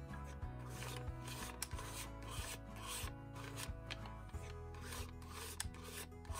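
Metal palette knife scraping and spreading thick acrylic paint, stiffened with marble powder, over paper in repeated short strokes, about two a second.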